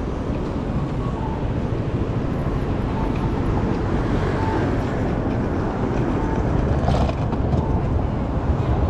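City street traffic noise at an intersection: a steady low rumble of passing cars, with a faint short beep repeating about every second and a half and a brief click about seven seconds in.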